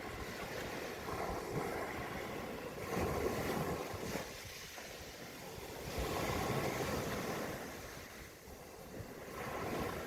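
Ocean waves washing in and drawing back on a shore, the surf swelling about three seconds in and again past the middle, easing off in between.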